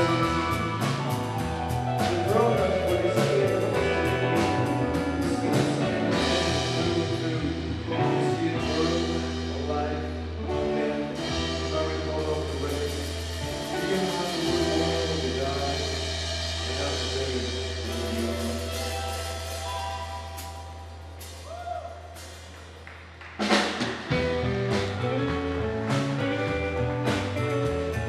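Live rock band playing with drums, electric guitar and a singing voice. Partway through, the drums thin out under a long held low bass note and the music quietens, then a loud hit about three-quarters of the way in brings the full band back.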